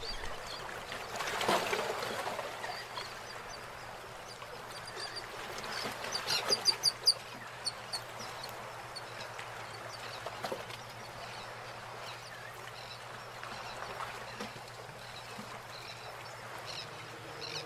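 Clear plastic film crinkling and squeaking as it is peeled off and smoothed by hand over paper. There is a burst of rustling about a second and a half in and a quick run of sharp squeaks around six to seven seconds in.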